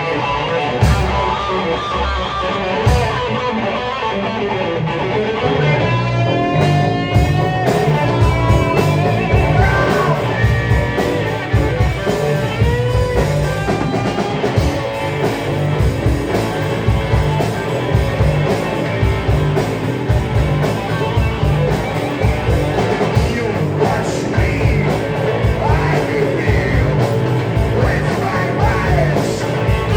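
Live rock band playing: electric guitar over bass and drums with a steady beat, with some sliding guitar notes about six to ten seconds in.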